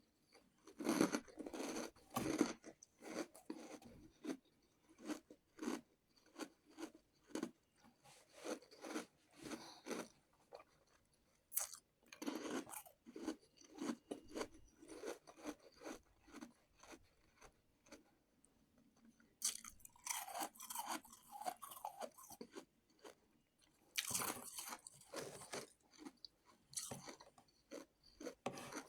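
Someone chewing and crunching ice close to the microphone: a run of crisp, irregular crunches with short pauses between mouthfuls.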